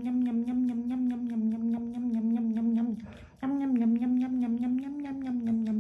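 A voice humming a long, steady 'mmm' that breaks off about three seconds in and starts again, like a drawn-out 'yum', over fast clicking about ten a second from a rabbit chewing.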